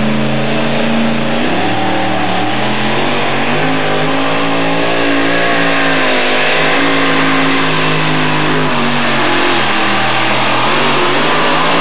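Modified two-wheel-drive pulling truck's supercharged engine running hard at high revs while it pulls the weight sled. Its pitch climbs in steps a few seconds in and drops back near the end.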